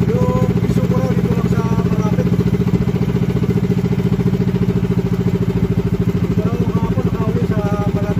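Small engine of a motorised outrigger boat (banca) running steadily while underway, with an even, fast pulsing beat. Faint voices can be heard over it near the start and near the end.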